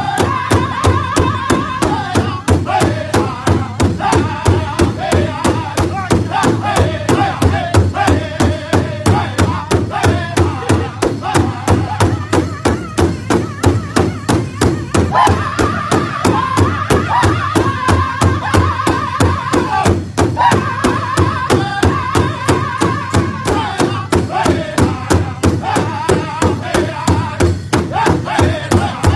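Powwow drum group singing in high voices over a large hide-headed powwow drum, struck together by several drummers in a steady, even beat. The sung phrases start high and fall, with short breaks between them.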